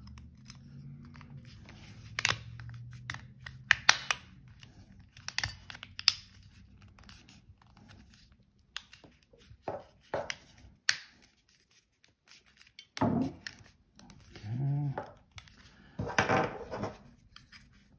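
Hard plastic cover of a ZEISS loupe battery pack being handled and pressed back onto its case: a run of sharp, irregular clicks and scrapes, with a longer scraping rustle near the end.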